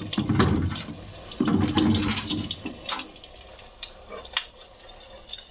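Water splashing and sloshing in the water tank of a steam-effect electric fireplace, in two rushing stretches, followed by a couple of sharp clicks.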